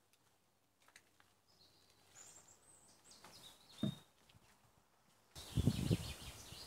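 Birds chirping in short high calls, with a dull thump about four seconds in. Near the end a sudden rise of rumbling noise hits the microphone.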